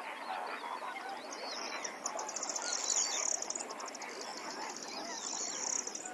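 Chorus of many birds calling over one another, with short chirps and whistles. A high, rapid buzzing trill runs through most of it, starting about a second and a half in.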